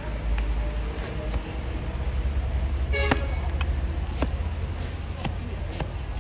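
Large flat hoof blade cutting and paring through a donkey's overgrown hoof horn, with sharp cracks and scraping as pieces of sole and wall break away. A steady low rumble runs underneath, and a short pitched toot sounds about three seconds in.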